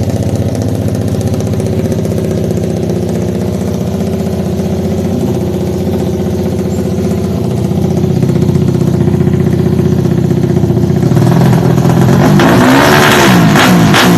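Suzuki Satria FU motorcycle's single-cylinder engine, bored up to 200cc, idling steadily. About eleven seconds in the sound gets louder and busier.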